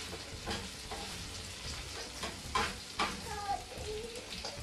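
Food sizzling as it fries in hot oil, with a few sharp knocks of a stirring utensil against the pot; the loudest come about two and a half and three seconds in.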